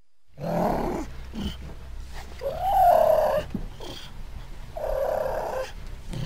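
Cougar calling: three rough, snarling calls about two seconds apart, the middle one the loudest, with a pitch that rises and then falls.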